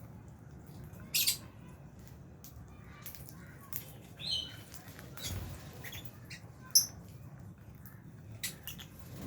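Lovebirds giving short, scattered squawks and chirps among small clicks and scratches, with sharp calls about a second in and near seven seconds.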